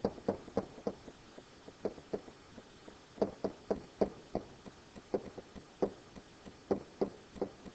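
Pen tip tapping and knocking on an interactive whiteboard while numbers are written: a string of short, irregular knocks, about three a second.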